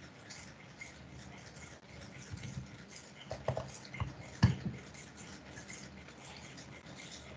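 A few sharp clicks and knocks over a faint steady hiss, bunched together around the middle, the loudest a single knock about four and a half seconds in.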